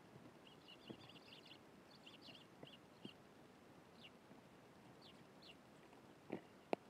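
Eurasian tree sparrows chirping faintly: a quick run of short chirps over the first few seconds, then a few single calls. Scattered soft knocks, with two sharper ones near the end.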